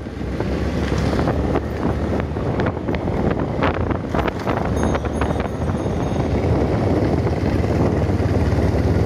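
Wind rushing over the microphone on a moving motorcycle, over the steady low drone of motorcycle engines at road speed. The engine sound gets a little fuller in the second half as the UM Renegade Commando comes alongside.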